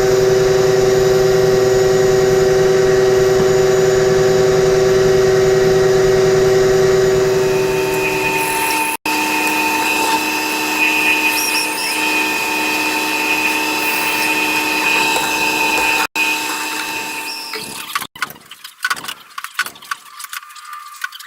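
Woodworking power tools running in a few short, abruptly cut clips: a steady motor whine for about the first nine seconds, a different, higher whine until about sixteen seconds, then irregular scraping and tapping near the end.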